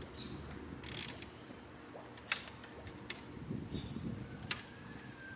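A few scattered sharp clicks and knocks, the loudest a little over two seconds in, over a low background.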